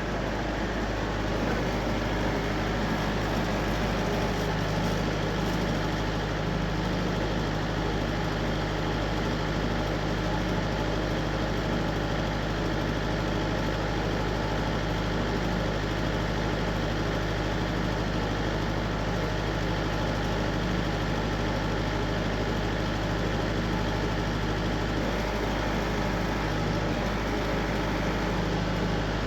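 An engine idling steadily: an even, low hum that neither revs nor changes.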